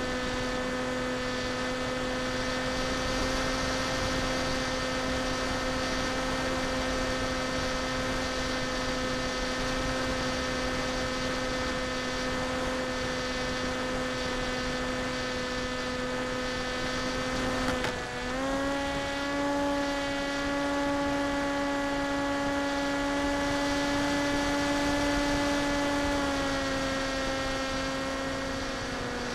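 Electric motor and propeller of an FPV model plane running at steady cruise throttle: a steady drone with a high whine above it. About 18 s in the pitch dips for a moment, then settles a little higher, and it eases back down near the end.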